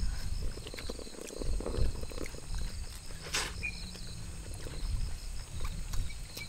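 Close-up eating sounds: noodles being slurped and chewed from a bowl, with one short sharper slurp about three seconds in, over insects chirping in a steady pulsing rhythm.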